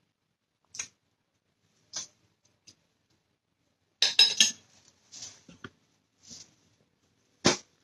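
A metal fork clinking and scraping on a plate: a quick cluster of loud clinks about four seconds in, with scattered short clicks before and after, and one sharper knock near the end.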